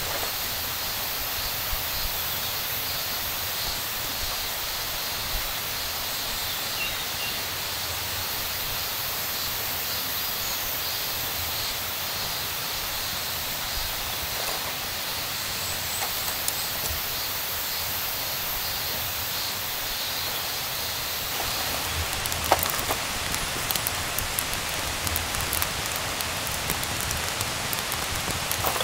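Summer insects singing steadily in a forest, a pulsing high chirr over a hiss. About three-quarters of the way through, this gives way to rain pattering, with many separate drops.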